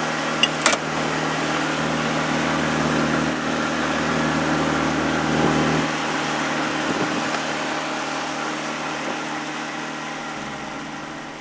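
A small river boat's engine running steadily, easing down over the second half as it is throttled back before being shut off. Two brief clicks about half a second in.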